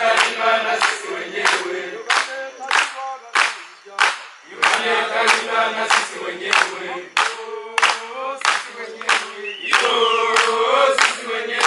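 Background music: a group of voices singing in chorus over a steady percussive beat.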